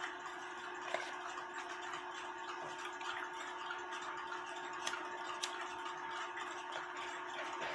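Faint steady hum with a light hiss, broken by a few small sharp clicks, about one second in and twice more around the middle.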